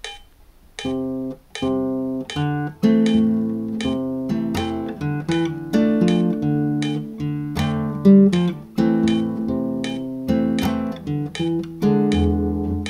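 Nylon-string classical guitar played fingerstyle in A minor: open bass notes, plucked melody notes and struck chords in a lightly swung rhythm, starting about a second in.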